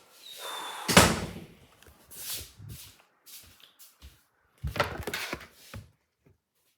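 A short scrape, then a single loud thump about a second in, followed by a cluster of smaller knocks around five seconds in.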